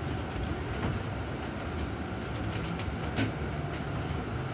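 Steady rumble of an airport passenger bus heard from inside its cabin as it drives across the apron, with a few light clicks and rattles about two and a half to three seconds in.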